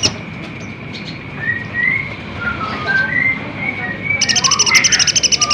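Kolibri ninja sunbird song: a string of short, rising chirps, then about four seconds in a loud, rapid trill of evenly spaced notes.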